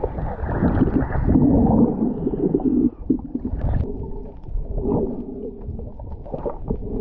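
Muffled underwater sound from a camera submerged on a reef: low, dull water noise with scattered small clicks and crackles.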